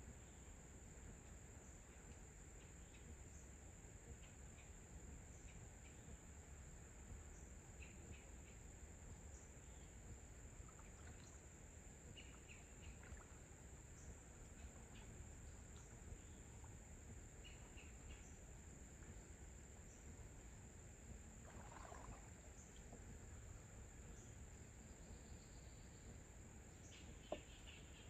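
Faint pond-side ambience: a steady high-pitched insect drone with scattered short bird chirps over a soft low background hiss. A single sharp click sounds just before the end.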